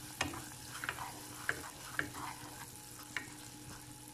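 Jaggery and butter bubbling softly in a nonstick saucepan as a wooden spatula stirs it, the spatula clicking against the pan about five times. The bubbling comes from butter just added to the melted jaggery for caramel.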